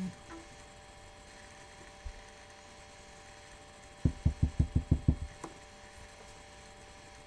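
A rubber stamp tapped repeatedly onto an ink pad to ink it up: about eight quick, soft, low taps in just over a second, about four seconds in, followed by a single light click.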